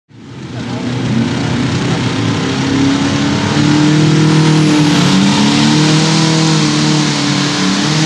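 Competition pulling tractor's engine revving hard, a loud sustained drone whose pitch wavers slowly. It fades in over the first second.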